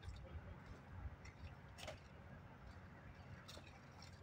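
Near silence, with two faint sharp snaps about a second and a half apart as agave leaves are handled.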